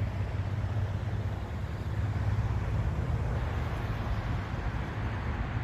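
Steady highway traffic noise: a constant low rumble with a fainter hiss above it.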